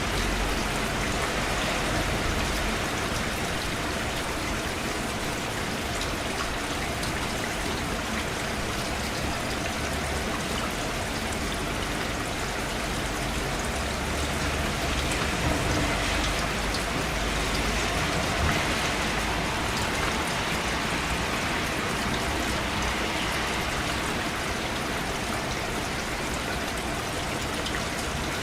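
Steady rain falling, a dense even hiss of drops striking a surface with fine pattering ticks throughout.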